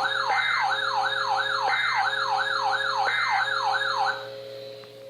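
Electronic siren-like alert tone: rapid falling sweeps, about three a second, over a steady lower tone broken by a short beep every second and a half or so. It stops about four seconds in.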